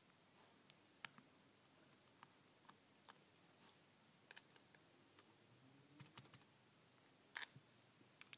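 Faint, scattered small clicks and ticks of a precision screwdriver and tiny metal screws as the screws holding down the iPhone 4's internal top plate are taken out, at an uneven pace, with a louder cluster of clicks near the end.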